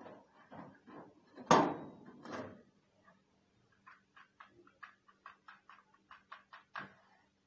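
Kerosene heater being handled to light it: a few knocks and scrapes, the loudest about a second and a half in, then a run of short, evenly spaced clicks, about four a second.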